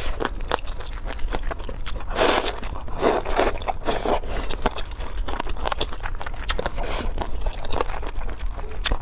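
Close-miked eating: wet chewing and lip-smacking on soft food in chili sauce, with many small mouth clicks and a few louder, longer mouth sounds between about two and four seconds in.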